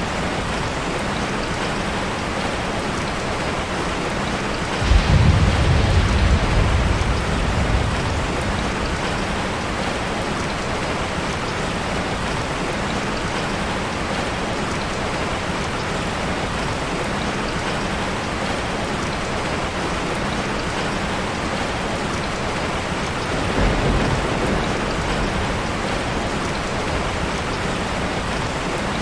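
Steady heavy rain falling on a surface, with a roll of thunder rumbling about five seconds in and a fainter rumble of thunder near the end.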